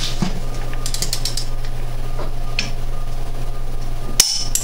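Torque wrench ratcheting and clicking as it tightens the front axle nut to final torque on a wheel hub bearing, with a couple of sharper clicks near the end.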